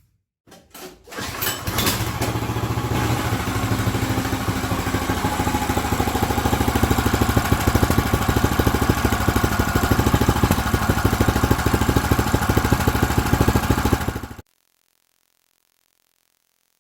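Snowblower's small gas engine starting: a few quick strokes, then it catches and runs steadily at an even, fast firing rate. It cuts off suddenly a couple of seconds before the end.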